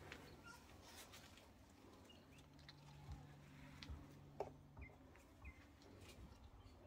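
Near silence: faint garden background with a few scattered small clicks and rustles.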